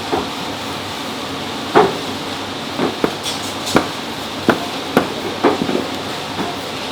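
Irregular sharp knocks and clatter of a street-food cook's utensils striking hard surfaces, about one a second, over a steady background hiss.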